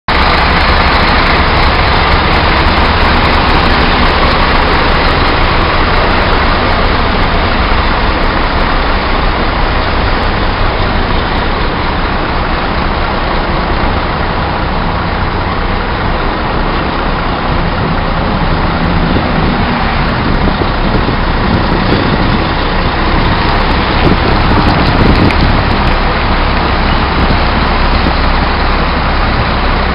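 Scania K360 coach's rear-mounted diesel engine running, a loud steady drone heard up close. Its low rumble grows stronger past the middle.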